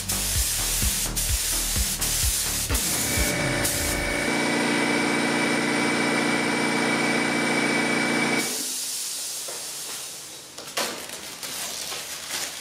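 Gravity-feed paint spray gun hissing as it sprays black paint onto a fibreglass panel. The hiss stops abruptly about two-thirds of the way through, leaving a few faint rustles.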